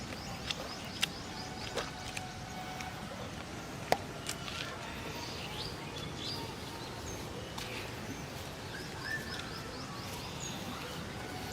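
Birds chirping in short, high calls over a steady background hiss, with a few sharp clicks, the loudest about four seconds in.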